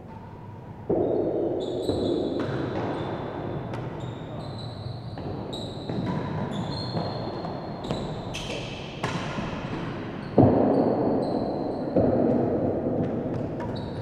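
A real tennis rally: the ball knocking off racquets, walls and floor several times, each hit echoing around the enclosed court, with short high squeaks of players' shoes on the court floor.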